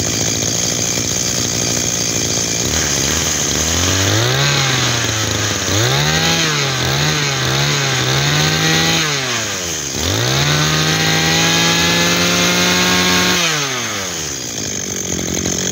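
Robin 21cc two-stroke brush cutter engine running at idle. It is revved up once, then blipped several times in quick succession, then held at high revs for about three seconds before falling back to idle near the end. This is a running test showing that the engine starts and runs well.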